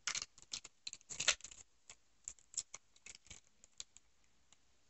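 Plastic candy wrapper crinkling in the hands: a quick, irregular run of short crackles that thins out toward the end.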